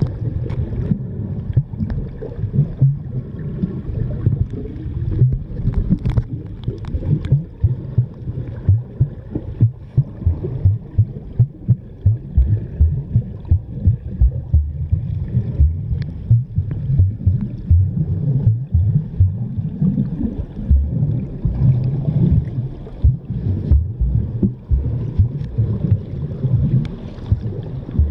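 Muffled underwater sound of a mountain stream heard through a submerged camera: a low, fluctuating rumble and gurgle of flowing water, with a few faint clicks and knocks.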